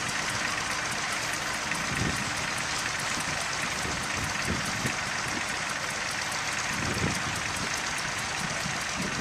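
Tractor engine running steadily, with a faint regular ticking and a few brief low thumps.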